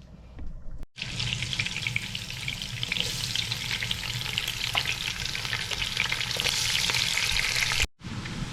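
Food frying in hot oil in a cooking pot, a steady sizzle with small clicks and scrapes from a spatula stirring. The sizzle starts abruptly about a second in and cuts off near the end.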